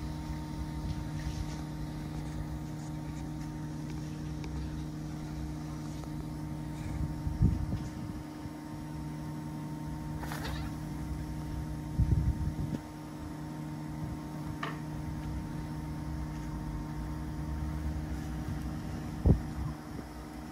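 Steady machine hum made of several fixed tones, with three short low bumps about a third of the way in, just past halfway and near the end.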